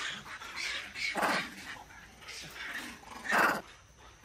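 Macaques giving a run of short, loud calls as they chase one another. The loudest calls come about a second in and again a little after three seconds in.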